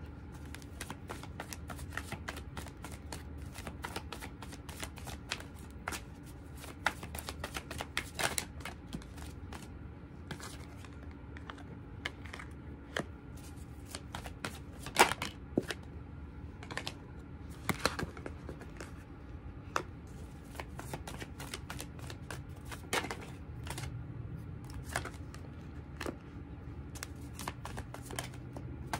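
A tarot deck being shuffled by hand: an irregular run of quick, crisp card clicks and flutters, with a sharper snap about halfway through.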